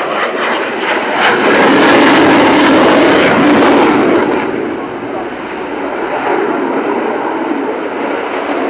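Panavia Tornado jet's twin RB199 turbofans at full power on a fast pass, a loud crackling jet roar that peaks in the first half. The roar then eases to a steadier, more distant sound as the jet climbs away with afterburners lit.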